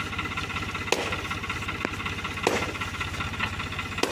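Tractor's diesel engine running steadily while it works a crane boom moving a log, with four sharp knocks or clanks at uneven intervals over the engine.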